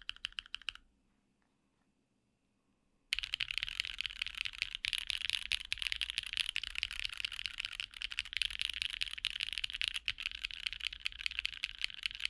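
Typing on a Singa x TGR Unikorn R2.1 60% custom mechanical keyboard with lubed retooled black switches on Kailh stems, an aluminum plate and PBT keycaps. A run of keystrokes stops just under a second in; after a pause of about two seconds, fast continuous typing resumes.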